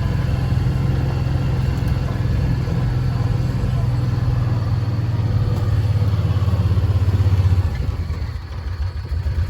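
Pickup truck's engine running steadily under way, heard from inside the cab, with a low drone and rapid even firing pulses. It eases off and gets quieter about three-quarters of the way through.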